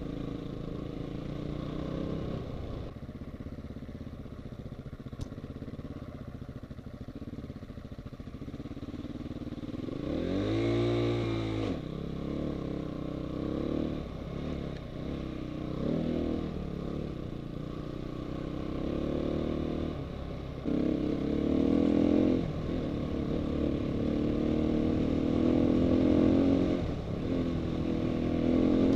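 Dirt bike engine heard from the rider's helmet, running and changing revs as the throttle opens and closes. The revs rise and fall sharply once about ten seconds in, and the engine is louder under harder throttle in the last third.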